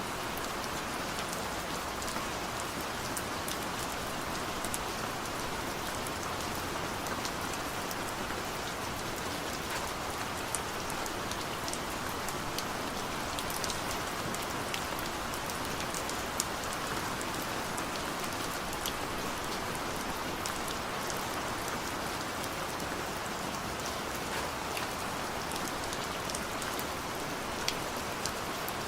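Heavy rain falling steadily as a dense, even hiss, with scattered sharp ticks of individual drops striking close by.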